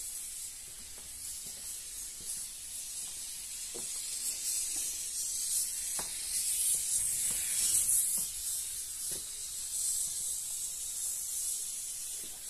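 Foam gun dispensing a bead of adhesive foam along the edge of a plasterboard sheet: a steady high hiss, with a few sharp clicks from the gun.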